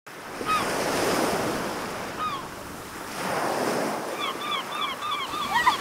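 Sea waves washing and breaking in two swells, with short chirping calls heard twice and then in a quick run near the end.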